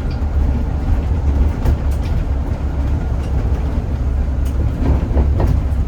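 A Zhongtong hybrid range-extender city bus driving, heard from inside: a steady low rumble from the drivetrain and road, with scattered light clicks and rattles.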